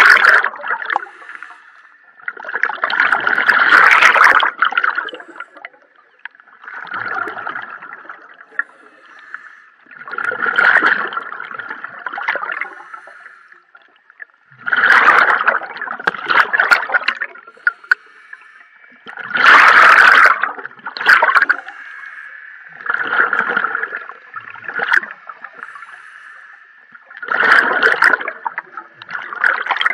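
Scuba diver breathing underwater through a regulator: a rush of exhaled bubbles about every four seconds, with a faint steady tone between breaths.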